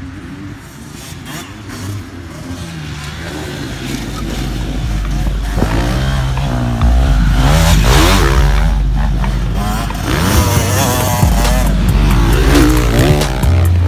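Motocross dirt bike engines revving up and down as they ride the track, getting louder over the first several seconds and then staying loud.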